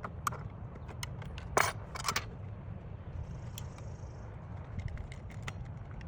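Scattered knocks and clicks over a steady low rumble. The loudest is a sharp knock about a second and a half in, followed by a short clatter, and a faint high hiss comes in for about a second near the middle.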